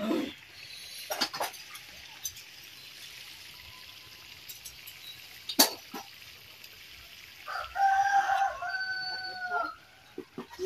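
A rooster crows once, a held call of about two seconds starting past the middle. A few short sharp knocks come earlier.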